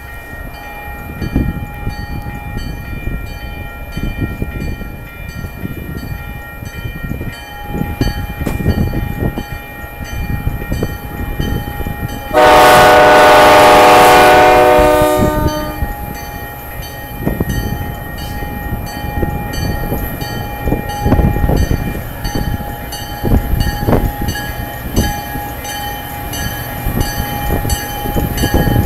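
Railroad crossing bell dinging steadily while a commuter train's diesel locomotive approaches. About twelve seconds in, the locomotive's air horn sounds one long blast of about three seconds, the loudest sound here, and the train's low rumble grows near the end.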